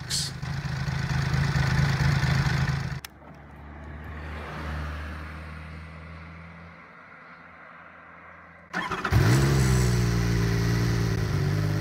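Horex VR6 motorcycle's 15-degree V6 engine running steadily, cut off abruptly about three seconds in. After a quieter stretch, the engine is started about nine seconds in, its pitch rising briefly as it catches, and settles into a fast idle around 2,500 rpm.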